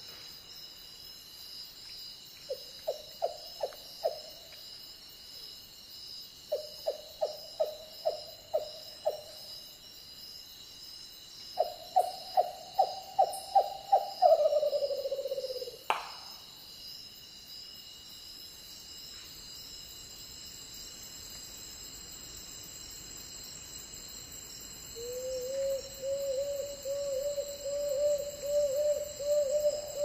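Frogmouth calling: three series of rapid hooting notes, each longer and louder than the last, the third trailing off in a falling trill, followed by a single sharp click. After a lull, a long fast trill of the same notes begins about five seconds before the end and rises slowly in pitch.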